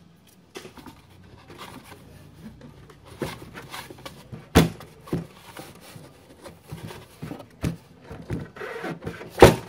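Hands handling a plastic joint-rolling device: quiet rubbing and scraping, with a sharp knock about halfway through and a louder knock near the end.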